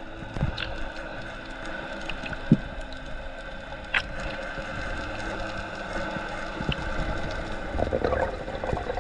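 Underwater ambience as heard through a diving camera on a breath-hold spearfishing dive over a reef: a steady muffled water hiss with a few sharp clicks, the loudest about two and a half seconds in, and the noise swelling near the end.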